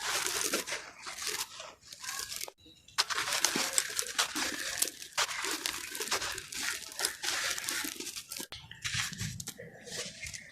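Yellow sand-cement block being crumbled into soft chunks: dense, crisp crunching and crackling with a brief near-silent break about two and a half seconds in.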